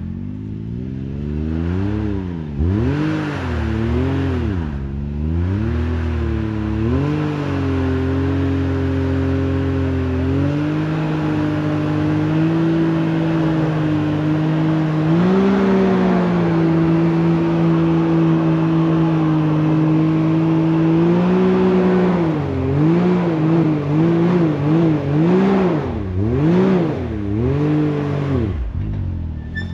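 Side-by-side UTV engine revving hard on a steep rock climb, its pitch rising and falling with the throttle. It gives several quick revs at first, holds a steadier pull through the middle, then goes into rapid short blips of the throttle near the end.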